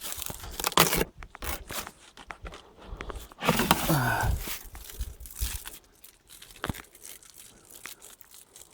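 Irregular rustling, crackling and tearing noises from the deer carcass being handled, with a short sound falling in pitch about three and a half seconds in.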